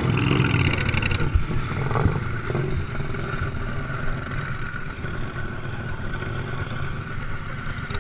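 An 18 hp Briggs & Stratton Vanguard V-twin engine on a racing lawn tractor, running steadily under load as heard on board. Two sharp knocks come in the first two seconds.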